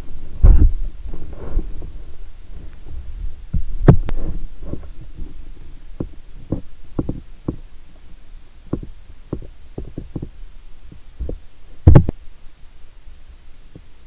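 Irregular soft thumps and knocks from movement on a bed and handling of the phone camera, with faint rustling of bedding. The loudest thumps come just after the start, about four seconds in and about twelve seconds in.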